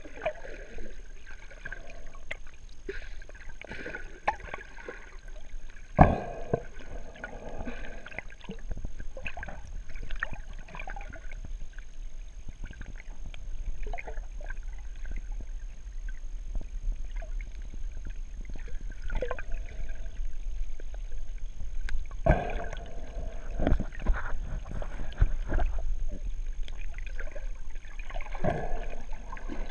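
Muffled underwater sound through a GoPro's waterproof housing: scattered bubbling and gurgling bursts every few seconds, with a sharp knock about six seconds in and a run of louder bursts a little past twenty seconds.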